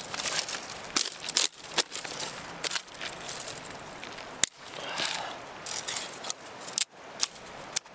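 Dry sticks and twigs being snapped by hand and dropped into a small rock fire pit: irregular sharp cracks and crunches, with rustling between them.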